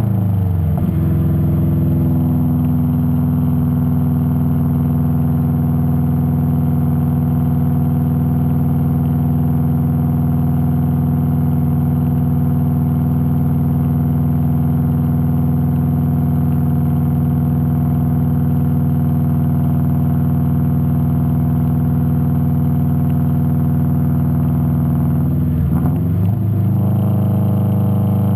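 A 2005 Subaru WRX's turbocharged flat-four engine is heard through a catless 3-inch downpipe and cat-back exhaust with a steady, deep drone while the car cruises. The pitch settles early on, and near the end it dips briefly and then steadies again.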